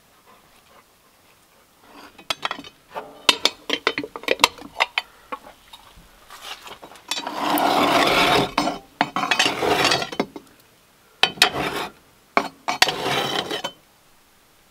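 Cookware clinking and knocking: a run of sharp clinks and clacks, then two longer stretches of scraping, the louder one about seven seconds in.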